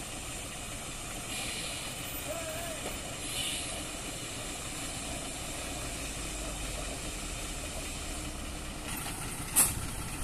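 Heavily loaded multi-axle lorry's diesel engine running low and steady as the truck creeps around a hairpin bend, with short hisses of air about one and a half and three seconds in. A sharp short burst near the end is the loudest sound.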